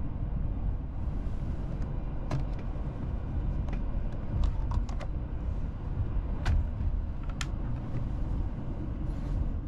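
Steady low rumble inside the car of a 287-series electric express train, with several sharp clicks and knocks as a plastic seatback tray table is unlatched and folded down.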